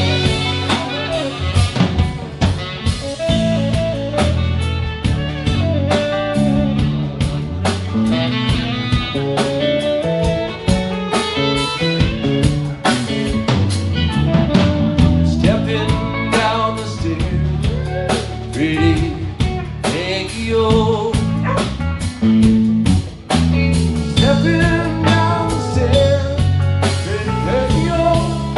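Live blues-rock band playing: electric guitar, bass guitar and drum kit, with a saxophone in the mix.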